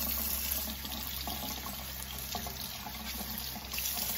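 Kitchen faucet running steadily into a stainless steel sink as an ear of shucked corn is rinsed under the stream, with a few faint knocks of handling.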